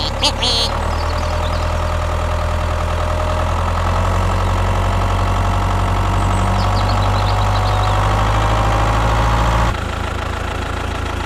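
Mini tractor engine running steadily at a constant speed; its deep low hum drops away suddenly near the end while a lighter engine sound carries on.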